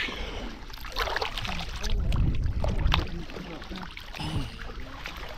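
Water sloshing and splashing in a hot-spring pool as a bather moves and scoops water onto his chest by hand, with a low rumble about two seconds in.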